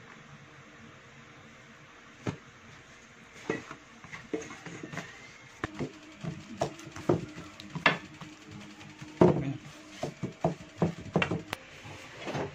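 Irregular taps and light knocks of hands pressing pizza dough out in a stone-coated frying pan, coming more often in the second half.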